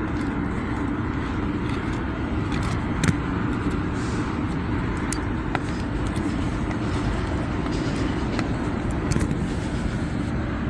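Steady low outdoor rumble, with a few faint clicks as pruning shears pry a broken piece out of a plastic drip-irrigation fitting.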